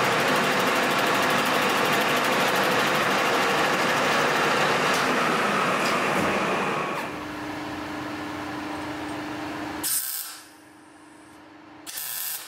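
Metal lathe running, spinning a steel plate held only by friction between the chuck and the tailstock's live centre. A loud steady noise lasts about seven seconds, then settles to a quieter hum. Near the end come short bursts of MIG welding crackle.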